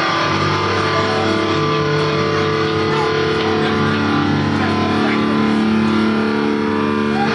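Live metal band playing, with electric guitars and bass holding long, ringing chords.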